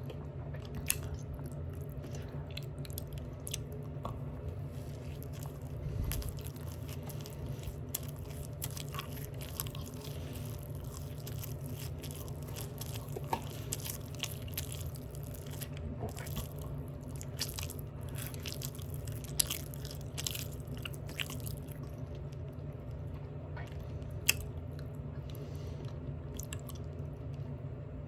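Open-mouth chewing of a Big Mac burger: wet smacking and clicking mouth sounds, irregular and close, over a steady low hum.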